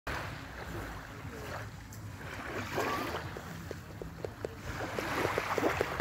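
Small waves of a calm sea lapping at the shoreline, the wash swelling twice, with a run of quick light clicks in the second half and a low rumble of wind on the microphone.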